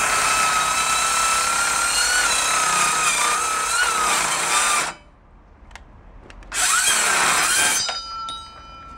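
Hilti SCM 22-A cordless metal-cutting circular saw cutting through two 32 mm steel rebars, its motor running with a steady whine. It cuts out suddenly about five seconds in, starts again with a rising whine about a second and a half later, and stops again after about a second. This on-off cutting is the battery's overload protection switching the saw off when it is pushed too hard.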